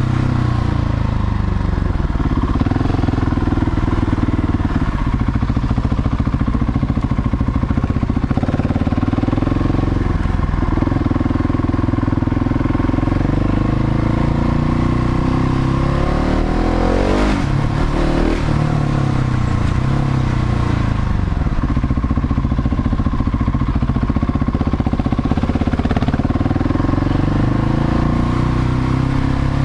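Husqvarna 701 Supermoto's single-cylinder engine running as the bike is ridden, its note rising and falling with the throttle, with a quick sweep up and down in pitch about halfway through.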